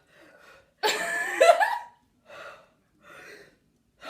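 A girl's short, loud, breathy vocal burst about a second in, then a few soft breaths.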